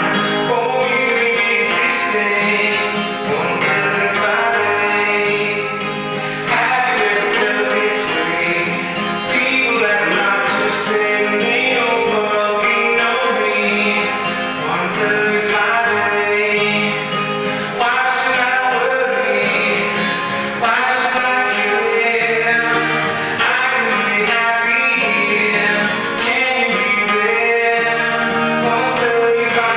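A man singing while strumming a twelve-string acoustic guitar, with strums recurring through the song.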